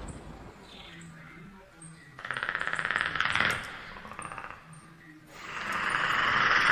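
A fast rattle, added as a sound effect, swelling and fading twice: once about two seconds in and again, longer, from about five seconds in.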